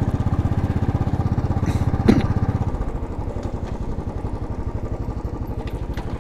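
Royal Enfield single-cylinder motorcycle engine running under way, with its fast, even thump, and a brief knock about two seconds in. The engine gets a little quieter from about three seconds in.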